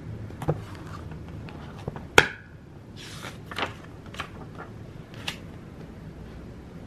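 A hand handling a thick spiral-bound paper planner on a desk: a series of light taps and knocks against the cover and desk, the sharpest about two seconds in, and a short paper rustle of a page being flipped about three seconds in.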